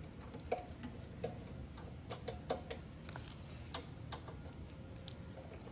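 Scattered light clicks and taps, about a dozen at uneven intervals, from hand tools working on a small lawnmower engine being taken apart.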